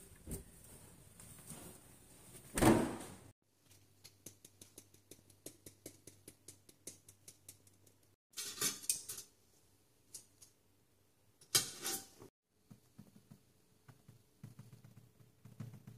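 Kitchen handling noises in several short takes: a loud burst of handling at a freezer drawer of bagged fish about three seconds in, then a run of light ticks, two short rustling bursts, and soft taps on an air fryer's touch panel near the end.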